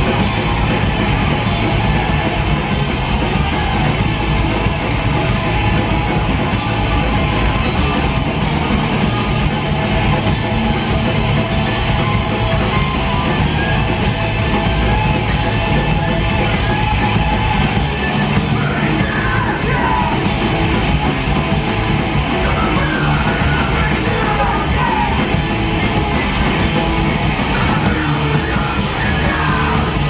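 Live punk rock band playing loud: distorted electric guitars, bass and drums, with yelled vocals over them.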